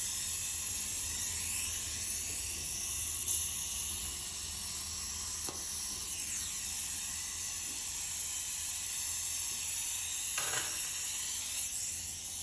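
Gas brazing torch flame hissing steadily while it heats the copper refrigerant pipe joints of a split air conditioner. There are a couple of faint light knocks from the pipework.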